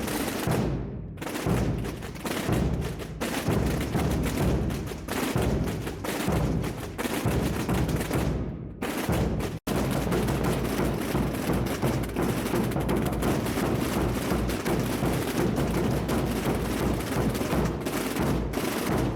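Massed Holy Week drums and bass drums (tambores and bombos) of a tamborada beaten together in a dense, continuous roll, with a momentary cut about halfway through.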